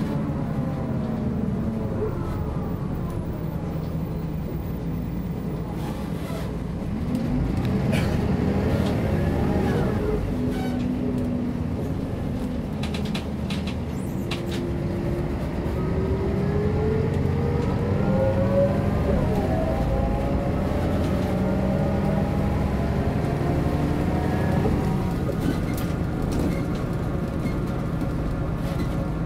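MAN NG 262 articulated city bus driving. Its engine and drivetrain note drops about eight to ten seconds in, then rises steadily from about fourteen to nineteen seconds as the bus picks up speed.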